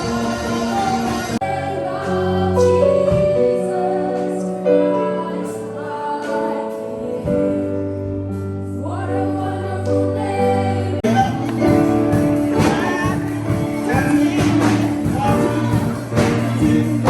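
Background music with singing, held notes and chords; the music changes abruptly about a second and a half in and again about eleven seconds in.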